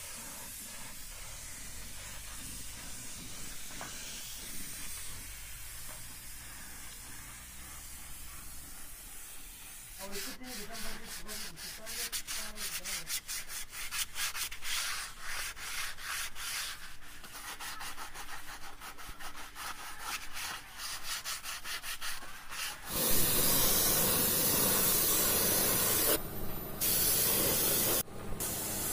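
A steel wheel rim being rubbed down by hand, with many quick strokes from about a third of the way in. Near the end a gravity-feed paint spray gun starts hissing loudly and evenly as it sprays the wheel, stopping twice briefly.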